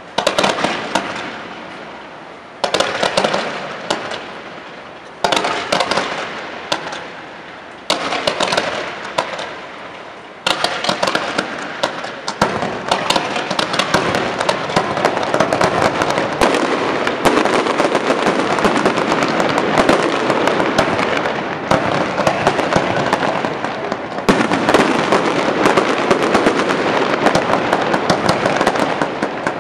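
Fireworks display: shells going off about every two and a half seconds, each loud onset fading away, then from about ten seconds in a continuous dense crackle of rapid pops that builds to the end.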